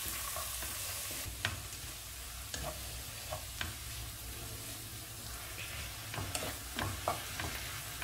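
Vegetables and sauce sizzling in a nonstick pan while a wooden spatula stir-fries them, with the spatula knocking and scraping against the pan about eight times. The sizzle is loudest over the first second.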